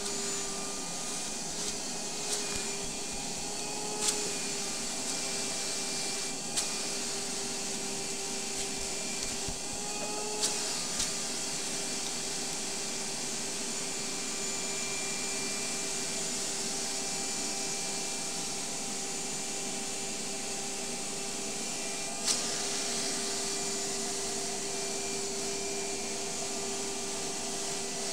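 Vacuum cleaner running steadily with a constant motor whine. A handful of sharp clicks and knocks come through, the loudest about four seconds in and again about twenty-two seconds in.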